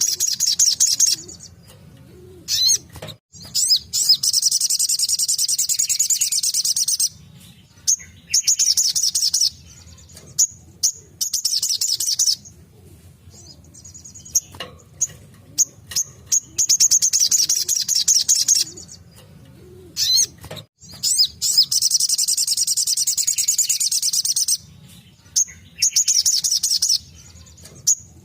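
Sogok ontong (little spiderhunter) singing its rapid 'tembakan' song: high, fast-trilled bursts of one to three seconds, repeated with short pauses and single sharp chips between them.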